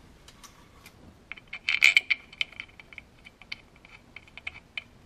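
Small metal parts clinking and ringing: a sharp cluster of clinks about two seconds in, then lighter irregular ticks, as the oil pump's bolts are handled by hand.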